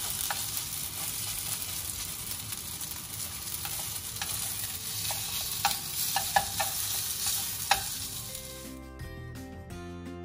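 Small piece of raw ground pork and turkey egg-roll filling sizzling in hot oil in a nonstick pan, stirred with wooden chopsticks that click against the pan a few times. About nine seconds in, the sizzle gives way to background music.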